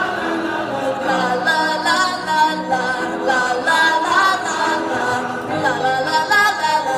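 A group of voices singing a cappella in several-part harmony, with held notes that move between chords.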